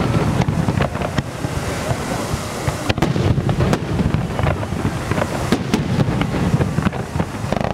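Fireworks display: aerial shells bursting in quick succession, many sharp bangs and cracks over a steady low rumble.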